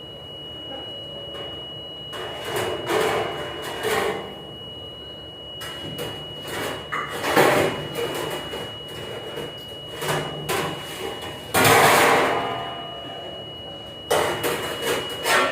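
Irregular clatter and knocks of dishes, racks and metal in a ship's galley dishwashing area, over a steady high-pitched tone from a machine that stops for a couple of seconds and comes back.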